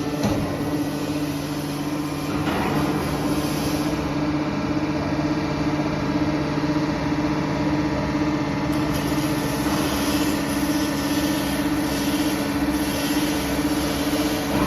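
Hydraulic power unit of a 160-ton scrap metal baler running with a steady hum during its idle test.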